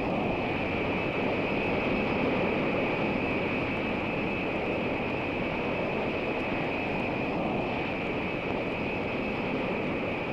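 B-52 carrier aircraft's jet engines running as it taxis: a steady rush of noise with a high, even whine on top.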